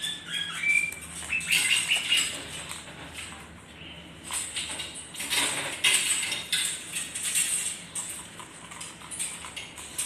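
A small green macaw moving about on a hard floor, giving a few brief high chirps in the first two seconds, with irregular rustling and scratching noises through the rest.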